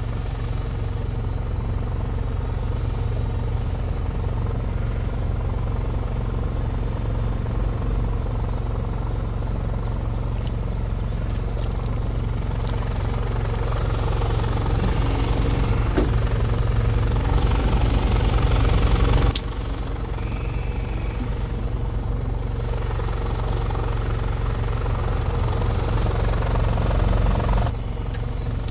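Small engines on an electrofishing boat, the generator and the outboard motor, running steadily with a low pulsing rumble. The level drops suddenly about two-thirds of the way through.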